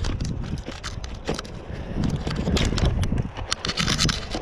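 Wind buffeting the microphone of a chest-mounted camera during an electric kick scooter ride on a concrete sidewalk, with frequent short scraping clicks over the rumble.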